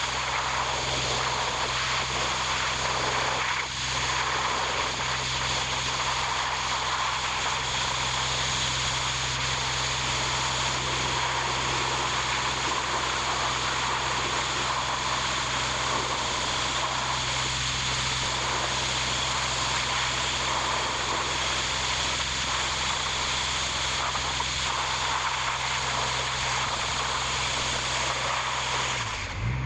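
A machine running steadily, with a constant low hum under an even hiss, changing abruptly just before the end.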